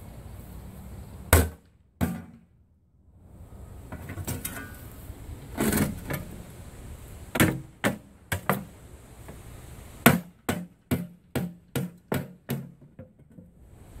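Hammer blows on the thin sheet-steel outer jacket of a tank-style water heater as it is chiseled open. The blows are scattered at first, then come in a fast run of about nine near the end.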